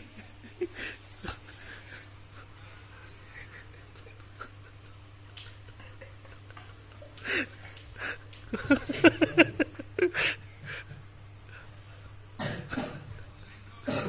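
A person's short, breathy bursts of voice: a quick run of them lasting about a second and a half a little past the middle, and a few single ones before and near the end. A faint steady hum runs underneath.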